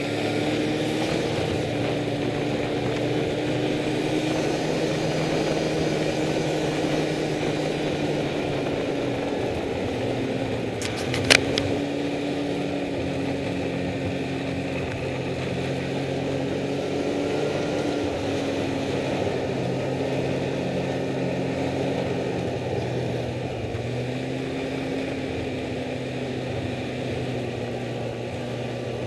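Snowmobile engine running steadily under way, heard close up, its pitch rising and falling a little with the throttle. A quick run of sharp clicks sounds about a third of the way through.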